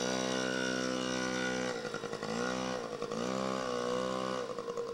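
Small Yamaha PW youth dirt bike's two-stroke single engine running at high revs under way, then dropping and climbing again several times as the throttle is eased off and reopened.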